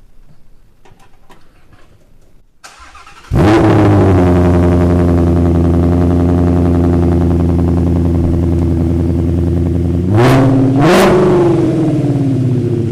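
Ford Shelby GT350's 5.2-litre flat-plane-crank V8 cranking briefly and catching, starting up through newly installed long-tube headers and a full exhaust, then running at a loud, steady fast idle. Two quick throttle blips about ten and eleven seconds in, after which the idle slowly drops.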